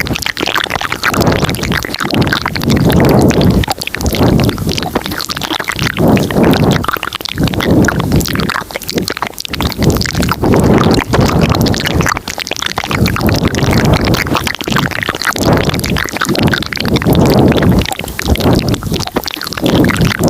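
Close-miked ASMR mouth sounds layered over each other: dense wet clicks and smacks, with a soft low swell every second or two.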